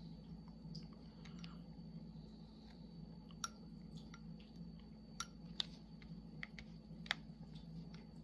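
Faint, irregular clicks and ticks of a small hand tool pressing and picking at a glued diamond painting canvas and its resin drills, with a few sharper clicks in the second half, over a low steady hum.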